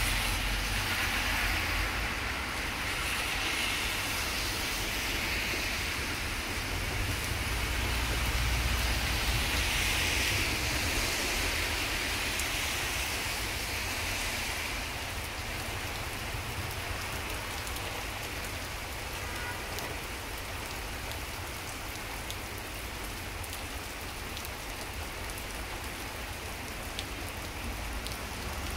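Steady rain falling on a wet street, with a dense hiss and patter of drops. Car traffic hissing through the water adds a low rumble that is heavier in the first half and eases after about halfway.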